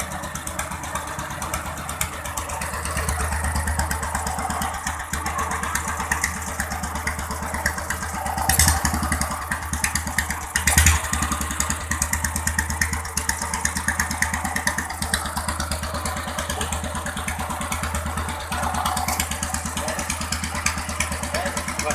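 Honda G200 single-cylinder engine running steadily with a fast, even beat of firing pulses. It briefly gets louder twice, about a third and halfway in.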